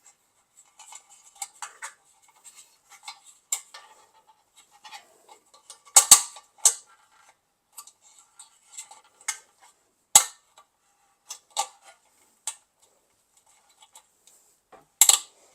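Scattered sharp metallic clicks and clinks, loudest about six and ten seconds in and again near the end, as a steel snap ring is worked around a chrome Mopar Sport hubcap and under its tabs to hold the center emblem.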